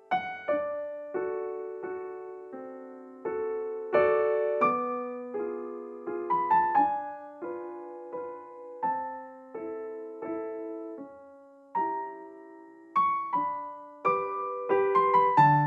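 Background piano music: a slow, gentle piece of struck notes and chords, each ringing and fading before the next.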